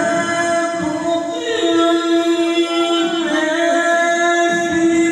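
A male qari's voice in melodic Qur'an recitation (tilawah), holding one long drawn-out note. The note bends in ornamented turns twice, about one and a half and three seconds in.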